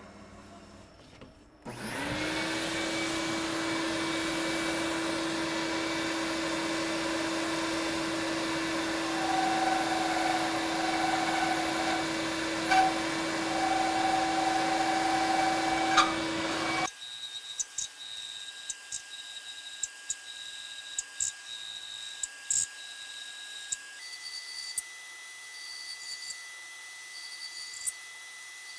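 A shop vacuum is switched on about two seconds in, spins up and runs loudly and steadily while it sucks up aluminium chips from the drill pre-drilling dowel pin holes. Near the middle the sound cuts abruptly to a much quieter machine run, with a steady high whine and scattered ticks.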